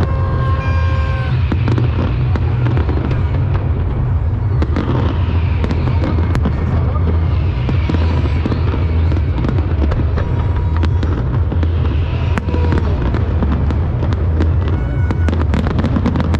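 Fireworks display going off in a dense, continuous run of bursts and crackle over a constant heavy low boom, with a few brief whistling tones about a second in.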